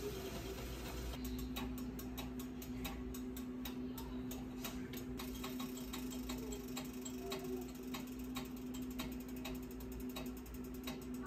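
Rapid, uneven mechanical clicking, several clicks a second and thinning out later, over a steady low hum that starts about a second in.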